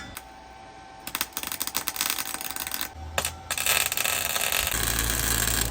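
MIG welder arc crackling in two runs, the first starting about a second in and a longer one running to the end, tacking metal patch plates into a rusted floor pan.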